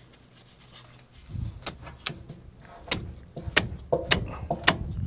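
A quick, irregular run of sharp metallic clanks and knocks, starting about a second and a half in and growing louder and closer together, some ringing briefly: tools working on the truck's metal brake and cable parts.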